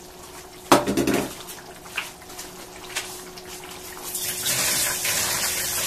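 Beef curry sizzling and bubbling in a frying pan as it braises with yogurt and fried onions just added, the hiss growing louder near the end. A sharp knock about a second in, and a few faint clicks.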